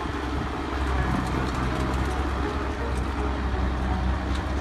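Hooves of a team of draft horses stepping on a packed snowy road as they pull a semi-truck tractor on a chain, with irregular soft ticks over a steady low rumble.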